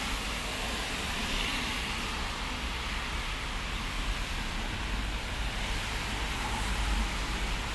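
Steady traffic noise from cars on a rain-wet road: tyres hissing on the wet asphalt over a low engine rumble, the hiss a little louder about a second and a half in.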